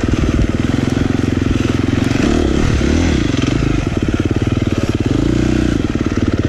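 Dirt bike engine running hard along a trail, the revs rising and falling as the throttle opens and closes, once about two to three seconds in and again near five seconds.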